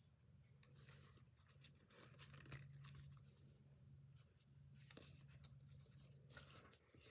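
Faint rustling and crinkling of a folded paper origami jet being handled, over a low steady hum.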